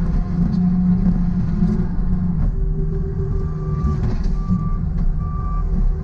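John Deere 329E compact track loader's diesel engine running steadily under work. In the second half its reversing alarm sounds three short beeps as the machine backs up.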